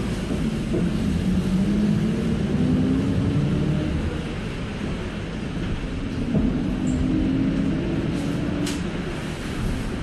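Inside a moving city minibus: the engine runs under steady road noise, its pitch climbing as the bus picks up speed, then settling and climbing again later. A brief click sounds near the end.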